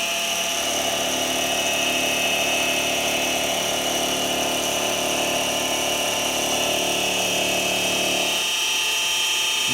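Mini milling machine running a final milling pass, with a steady motor whine. A lower hum under it stops abruptly about eight and a half seconds in, while the whine carries on.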